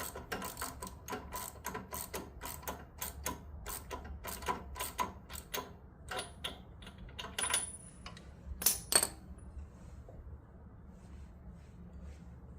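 Hand socket ratchet clicking in quick runs as a fastener on the small engine is turned, slowing about two-thirds of the way in and ending with two louder clacks.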